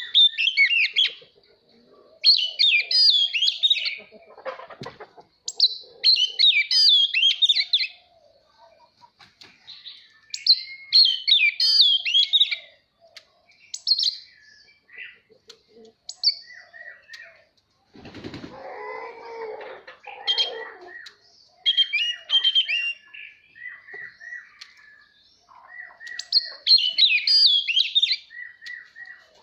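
Oriental magpie-robin singing: loud bursts of rich, fast-changing whistled phrases every few seconds, with short pauses between them. A brief noisy rustle, like wing flapping, comes about two-thirds of the way through.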